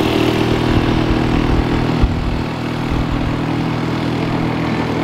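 Small outboard motor on a dinghy running steadily under way, a continuous engine drone with a rushing noise over it.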